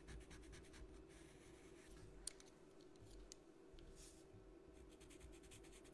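Near silence: faint scratching of a pastel pencil on paper with a few light clicks, over a low steady hum.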